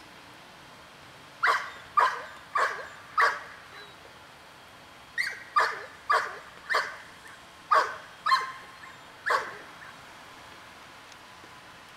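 A dog barking in two bouts of sharp barks, four and then seven, with a short pause between.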